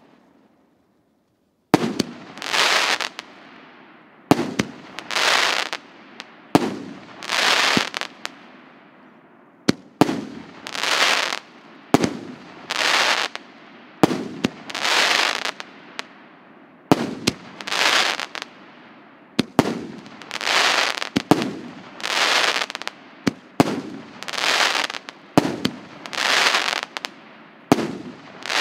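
Russian Pyrotechnics РС9620 'ММС' 2.0-inch, 19-shot fireworks cake firing shot after shot. A sharp launch bang comes roughly every two seconds, each followed by an aerial burst that sounds for about a second. The first shot comes about two seconds in, after a short quiet gap.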